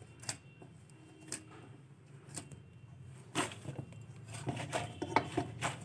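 Hands kneading rice-flour dough in a steel plate: faint, scattered clicks and taps, about one a second at first and coming closer together near the end.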